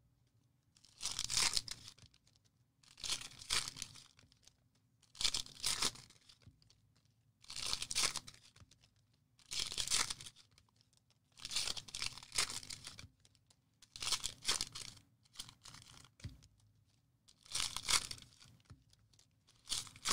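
Trading card pack wrappers being torn open one after another: about ten short rips, roughly one every two seconds, with crinkling between them.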